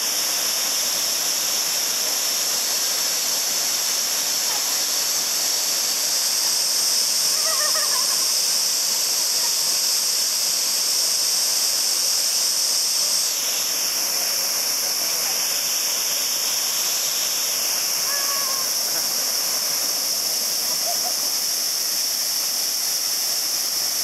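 Waterfall pouring steadily into its plunge pool, a constant hiss-like rush of water, with faint voices now and then. The rush shifts in tone slightly about thirteen seconds in.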